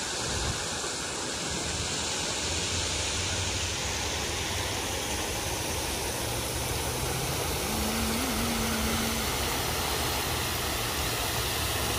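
Water spouting and spraying from a fountain, a steady rushing hiss with a low rumble under it.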